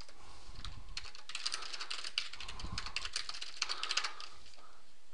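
Computer keyboard being typed on: several quick runs of keystrokes with short pauses between them, from about a second in until near the end.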